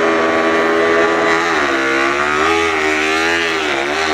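Repsol Honda MotoGP racing motorcycle's V4 engine running at low revs as the bike pulls away. The pitch holds steady, then wavers down and up a few times in the second half.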